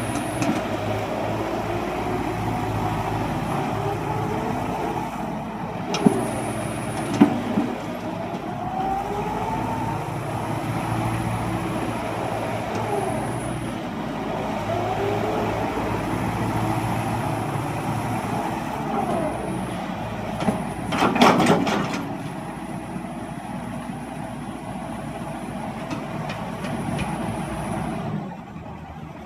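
Hyundai heavy machine's engine running steadily under working load, its pitch rising and falling again and again as it works. Sharp metallic clanks come twice about six to seven seconds in and in a louder cluster around twenty-one seconds, and the sound drops away near the end.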